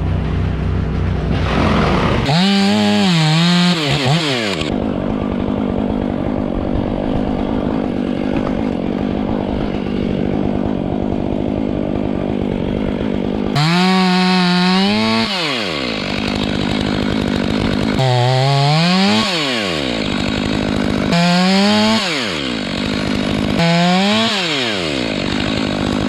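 Petrol chainsaw idling, then opened to full throttle five times for one to two seconds each; the pitch wavers under load as it cuts, then falls back to idle.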